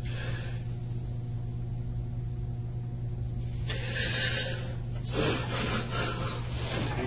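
Breathy sniffs and shaky breaths from a person in the interview room, over a steady low electrical hum on the recording.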